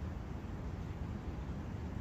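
Steady forest wind noise: an even, low rumbling hiss with no distinct events.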